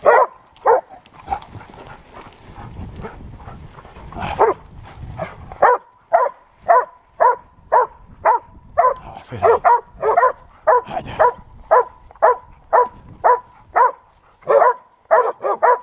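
A hunting dog barks at a wild boar it is holding at bay. After a few scattered barks, it settles about six seconds in into steady, regular bay barking, about two barks a second.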